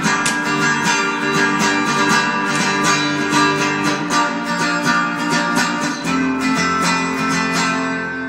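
Background music: acoustic guitar picked and strummed in a quick, steady rhythm.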